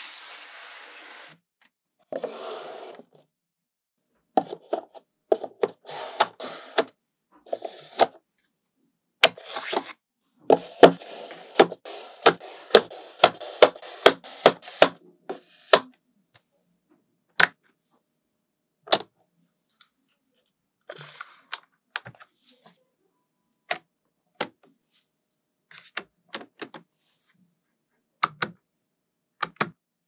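Small magnetic balls snapping together in sharp clicks at an irregular pace, with a few short stretches of the balls rattling against one another.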